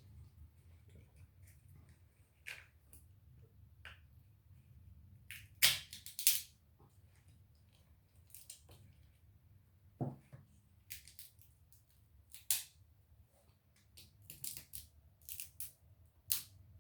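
Crab claw shell cracking and snapping as it is crushed with the cracker notch of kitchen scissors and picked apart, a sharp crack every second or two with softer clicks between.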